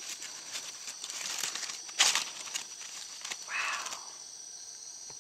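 Dry leaf litter crackling and rustling as a snake moves over it in a person's hand, loudest in a sharp crinkle about two seconds in and again more softly about three and a half seconds in. Behind it, a steady high buzzing of night insects.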